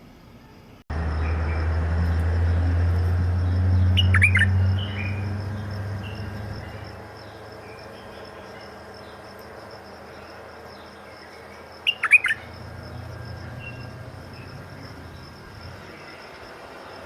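Bulbul calling: two loud, short calls about four and twelve seconds in, with softer scattered chirps between them. Under them runs a low rumble that starts suddenly about a second in, is loudest for the first few seconds and then fades, along with a steady faint high whine.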